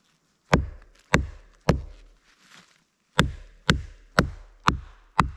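A baton striking the spine of a Hultafors OK4 Scandi-grind bushcraft knife to drive it through a log of dry, hard wood. There are three sharp knocks about half a second apart, a pause, then five more at the same pace.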